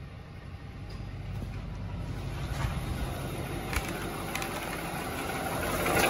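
2018 Nissan Titan V8 engine idling with the climate control just switched back on, growing louder, with a few sharp clicks a little past halfway. The owner suspects the knocking-clicking comes from the A/C compressor clutch or an accessory pulley rather than from inside the engine.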